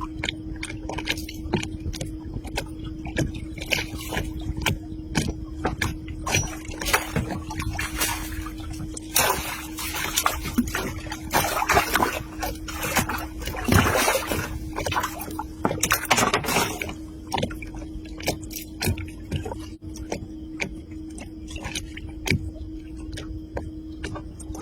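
Water splashing and sloshing in irregular bursts, mixed with many sharp knocks and clicks, over a steady low hum.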